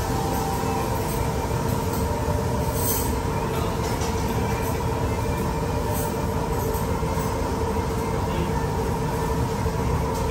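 Steady mechanical drone with a constant hum, with a few light metal clinks of cutlery on the iron plates.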